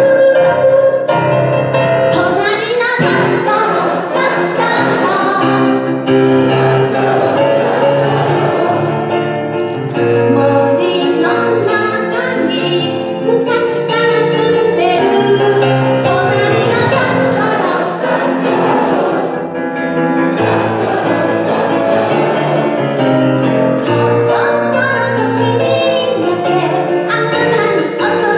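A woman singing into a microphone, accompanied by a grand piano.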